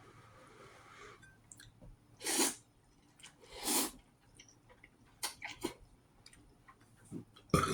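A man eating at close range makes two short breathy rushes of noise about a second and a half apart, with faint small clicks between them. A loud burp begins right at the end.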